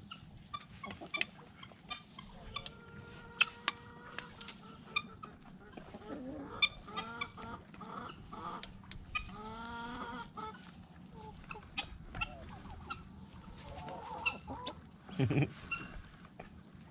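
Chickens clucking and calling: a held call about two and a half seconds in, then a run of quick rising-and-falling calls in the middle, with many sharp clicks in between.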